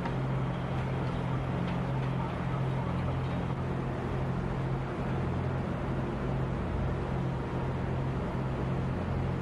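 Heavy machinery engine running steadily, a constant low hum with no change in pitch.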